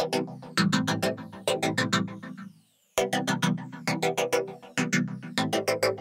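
Electronic intro music: synthesizer chords pulsing quickly and steadily, breaking off for a moment just before halfway through.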